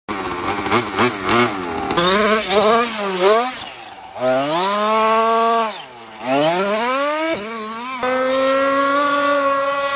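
Large-scale RC short-course truck's engine revving hard up and down several times as it is driven, then holding a steady high speed from about eight seconds in.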